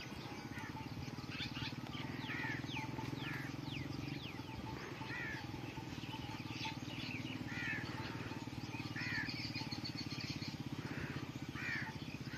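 Birds calling: a short downward-sliding chirp repeated every second or so, mixed with quick high twitters. A steady low hum runs underneath.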